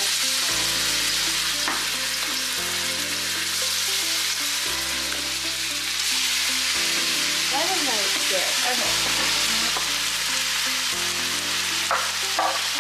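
Pieces of raw chicken sizzling steadily as they fry in hot oil in a nonstick pan, the sizzle starting just as the chicken hits the pan.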